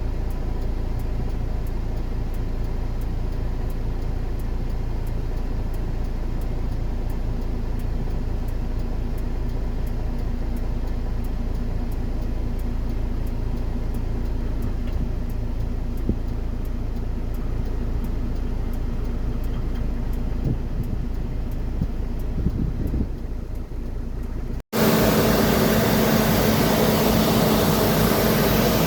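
Steady low rumble of engines at an airfield. After a sudden cut about 25 seconds in, a louder aircraft engine runs with a steady hum.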